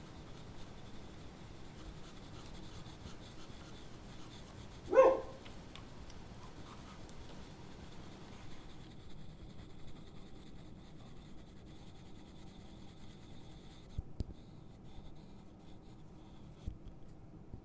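Pencil scratching softly on toned drawing paper in short shading strokes, with one short, loud bark about five seconds in.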